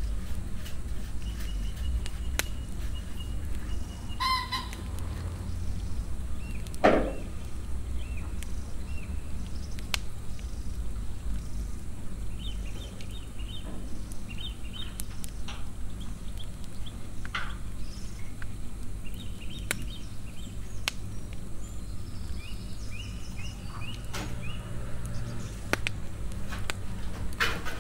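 Chickens clucking and calling now and then, with one much louder call about seven seconds in, over a steady low hum.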